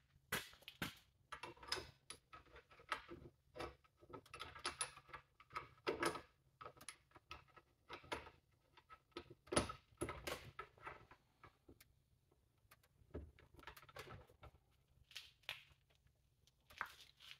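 Scattered light metallic clinks and knocks as the main bearing caps and their bolts are handled and set onto a Ford 9-inch third member's carrier bearings. The clinks come in irregular flurries, thinning out in the middle and picking up again near the end.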